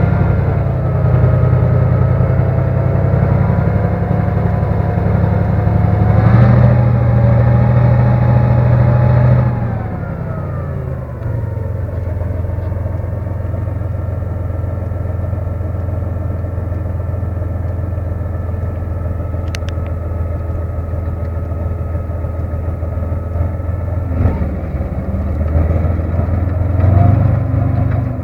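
Tank engine running hard. About ten seconds in, its pitch and loudness drop as it settles to a lower steady speed, and near the end it revs up again.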